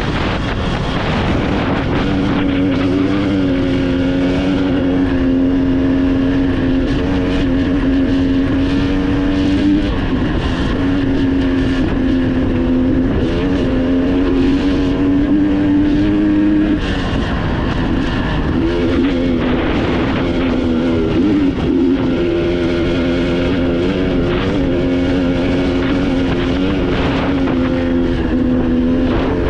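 Off-road vehicle engine running at a fairly steady speed, its pitch dipping and climbing back a few times.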